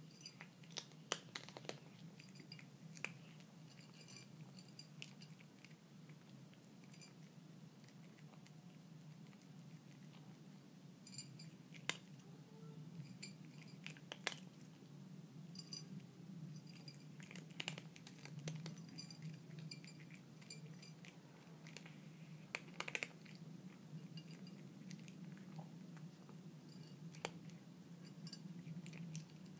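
Domestic cat eating dry kibble from a plate: faint, irregular crunches and clicks as it bites and chews.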